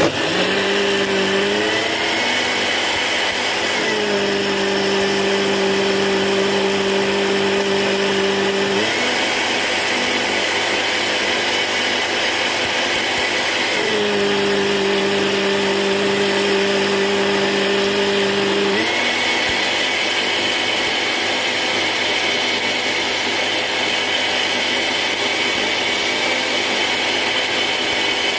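Countertop blender motor running, blending fruit into juice. A loud, steady whirr whose hum steps up and down in pitch several times.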